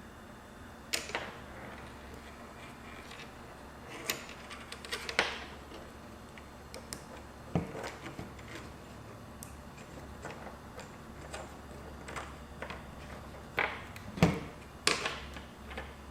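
Irregular clicks and light taps of an HP G72 laptop's plastic parts and cables being handled during a teardown. There are a dozen or so sharp clicks, the loudest about a second in, around five seconds, near eight seconds, and a cluster near the end.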